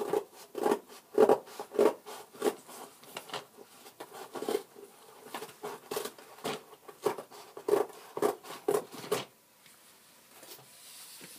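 Scissors cutting through a cardboard box, a run of sharp cuts roughly two a second that stops about nine seconds in.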